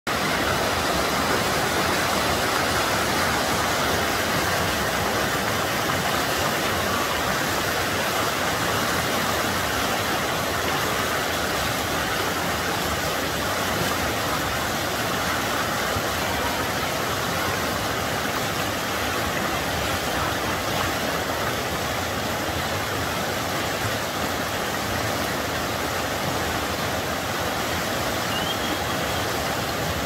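Fast mountain river rushing over shallow rapids, a steady, unbroken roar of white water.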